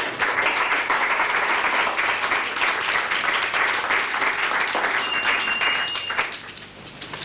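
Audience applauding: dense clapping that dies away about six seconds in.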